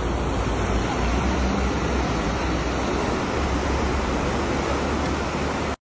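Loud, steady rush of the swollen, fast-flowing Marsyangdi River in flood. The sound cuts off abruptly near the end.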